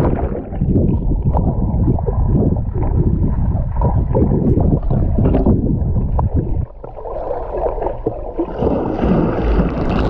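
Muffled underwater water noise heard through an action camera held beneath the sea surface: a dull rushing and bubbling from a swimmer's strokes. A brighter hiss comes in near the end.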